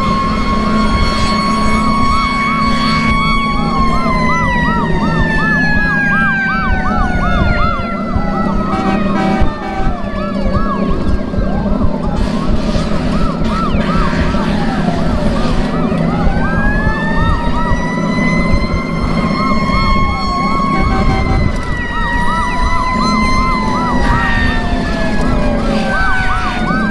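Fire engine sirens sounding together: a slow wail climbing and falling over several seconds, crossed by other sirens and a fast repeating warble, over the steady low rumble of a 1958 American LaFrance fire engine running at road speed.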